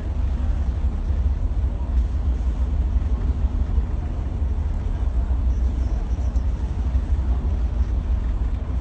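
Steady deep rumble of a vehicle under way, with no separate knocks or changes.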